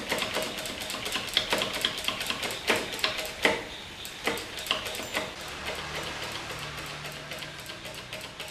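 Motorcycle hydraulic clutch lever being pumped over and over, a run of irregular sharp clicks and clacks, several a second. The pumping pushes brake fluid through the still-empty line to bleed air from the new hydraulic clutch.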